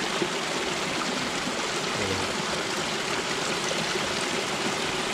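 Hot spring water rushing and splashing over rocks below a white mineral-crusted spout, a steady stream.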